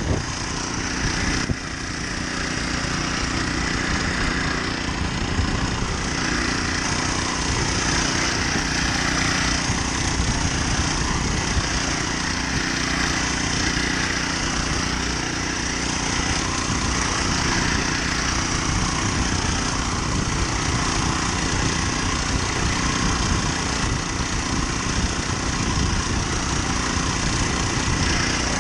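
Honda GX35 small four-stroke engine driving a motorised kayak, running steadily at constant speed, with a steady rushing hiss of wind and water over it.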